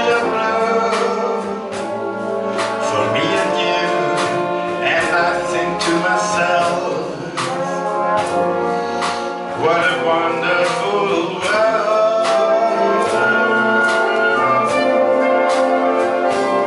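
Concert wind band with brass (tubas, baritone horns, trumpets, trombones) and a drum kit playing a slow, steady piece, with a man singing into a microphone over the band.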